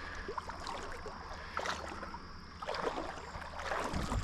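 Creek water sloshing and splashing as a hooked smallmouth bass is drawn in to the bank, with scattered small knocks and a low steady rumble. The splashing is busiest about three seconds in, and a couple of low thumps come near the end.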